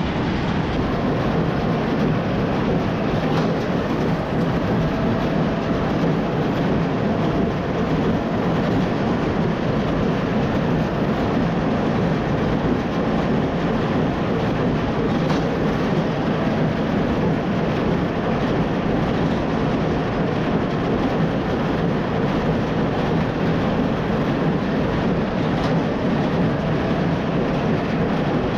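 Tractor pulling a working small square baler through alfalfa windrows: the engine runs steadily under load over the baler's continuous mechanical clatter.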